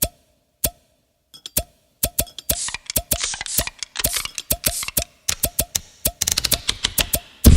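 A sampled beat made from everyday sounds: a short pitched thump repeats in a loose rhythm. About two seconds in, crackly, hissing hits join it and grow denser toward the end.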